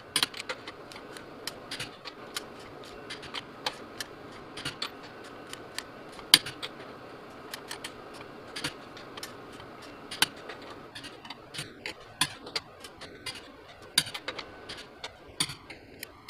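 Irregular sharp clicks and clinks of hand tools and brake parts being handled during a brake job, a few to several a second, a handful much louder than the rest.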